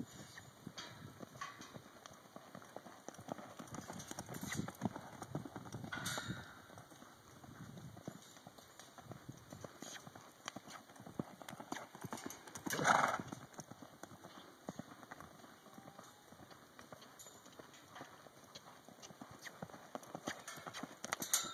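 Horse's hoofbeats on the dirt of a round pen as it is ridden around at a lope, with one louder, brief sound a little past halfway.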